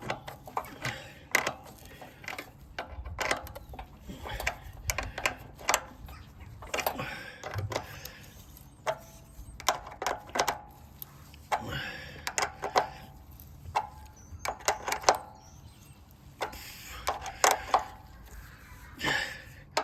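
Irregular clicks, taps and short metallic knocks of a spanner working the nuts on a Hyundai pressure washer's air filter casing, tightening them down.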